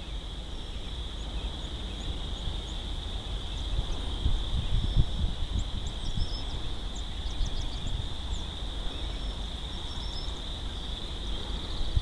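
Wind buffeting the microphone in uneven gusts, over a steady high-pitched drone. Scattered short bird chirps come through, mostly in the middle.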